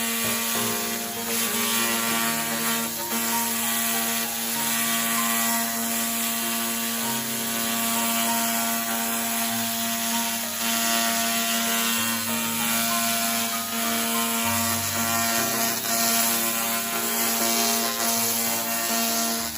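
Handheld fiber laser cleaning gun running in cleaning mode: a steady buzzing hum under a loud, dense hiss, as it removes rust and paint from metal.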